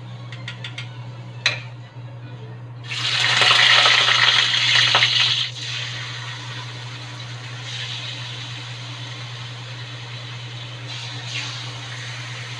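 Sizzling of onion slices and raw chicken dropped into hot oil in a wok: a loud burst of sizzle about three seconds in that lasts a couple of seconds, then settles to a steady, quieter sizzle. A sharp clink comes just before it.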